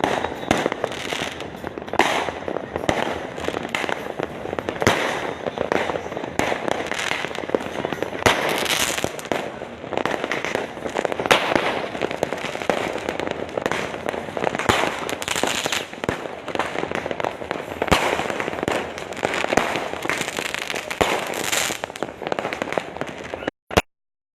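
Many fireworks and firecrackers going off at once: a dense, unbroken crackling din with frequent sharper bangs, some louder than the rest. The sound drops out abruptly to silence near the end.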